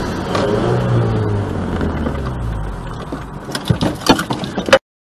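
Dashcam audio of a car collision: a heavy rumble of vehicle and road noise, loudest in the first second or so. Over the last second come a string of sharp knocks and clatter, the loudest just before the sound cuts off.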